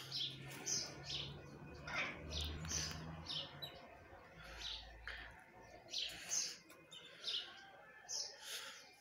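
Caged domestic canaries chirping: short, high call notes repeated about once a second.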